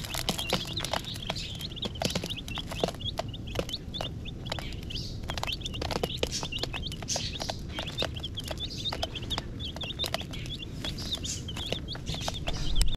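A group of young chicks peeping: many short, high chirps overlapping without a break, with scattered sharp clicks.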